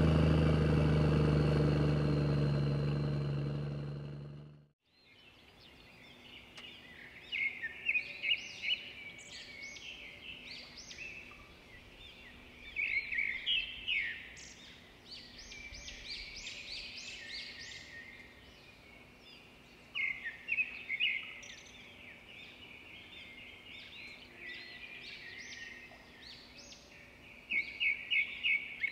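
Small birds chirping in short clusters of quick high notes, a few seconds apart. Before them, a steady low hum fades out during the first four seconds or so.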